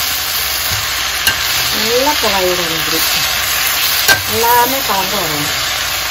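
Shredded cabbage sizzling in hot oil as it is stir-fried for cabbage poriyal in a stainless steel pan. A spatula scrapes through it and taps the pan sharply about a second in and again about four seconds in.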